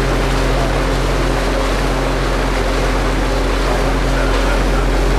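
Small runabout motorboat's engine running steadily with a constant low hum, under a loud rush of wind and water noise.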